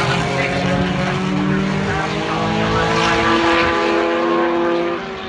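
Formula One car engine running at high revs, a loud pitched sound that drifts slowly up and down.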